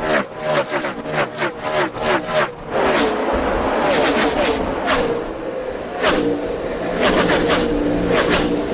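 NASCAR Cup cars' V8 engines at racing speed. At first a tight pack streams past in quick succession, each car's pitch dropping as it goes by. From about three seconds in, a steadier engine note holds, with single cars passing roughly once a second.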